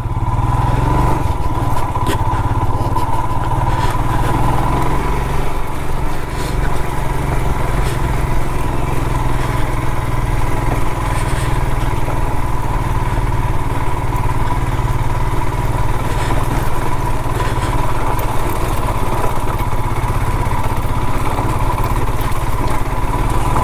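Royal Enfield Himalayan's single-cylinder engine running steadily under load as the motorcycle climbs a loose, rocky off-road track, with a steady high-pitched tone over the low engine note.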